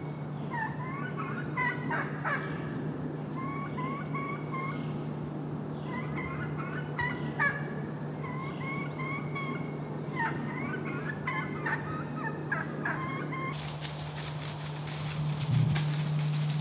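Wild turkeys calling: runs of three to five short calls repeated every second or two, over a steady low hum. Near the end the calls stop and a crackling rustle takes over.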